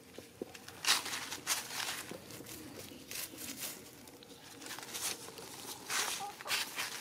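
Chickens scratching and pecking through dry fallen leaves and grass: irregular crackling rustles, with sharper ones about a second in and again around six seconds.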